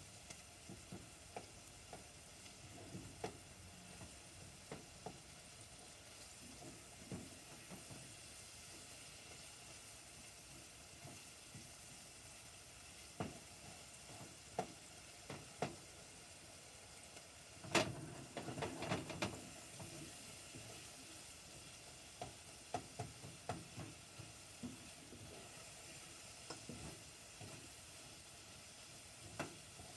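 Food sizzling in a pot on a gas burner, with a spoon knocking and scraping against the pot as it is stirred; a louder run of clatter about eighteen seconds in.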